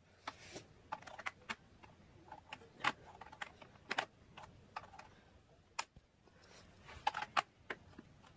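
Irregular small clicks and short scrapes of a screwdriver working the screws on the underside of a Toshiba Portégé R700 laptop, with no steady rhythm.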